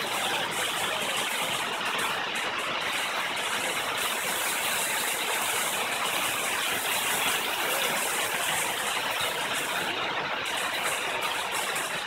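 Steady rushing of water from a waterfall and its creek.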